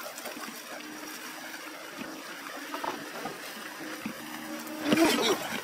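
A car towing a caravan creeps over a wet, muddy road. The tyres crackle and splash on the wet surface over a faint, steady engine hum, and there is a brief louder jolt about five seconds in.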